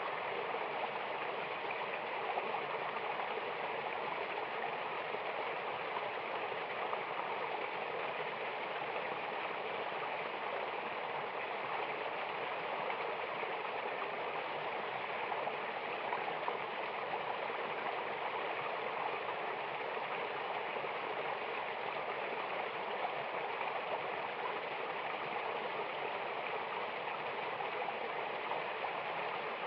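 Rushing water of a mountain waterfall and river, a steady, even rush with no breaks.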